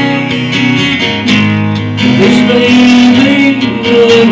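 Acoustic guitar strummed in a slow country ballad, with a man singing a held line over it from about halfway through.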